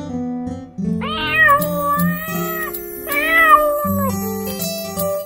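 A cartoon kitten meows twice over children's song backing music. The first meow is long and drawn out; the second, about three seconds in, is shorter.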